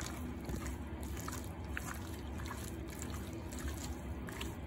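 Faint wet squishing of a hand mixing raw chicken strips with crushed black pepper in a glass dish, with a few soft ticks over a steady low hum.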